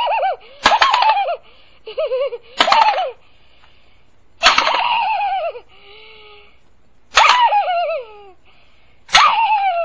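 A series of loud cries every one to two seconds, most of them sliding down in pitch.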